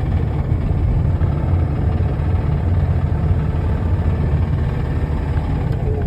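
Mazda car engine running under way with a very loud knock ("стучит очень сильно"). The engine is failing and due for replacement.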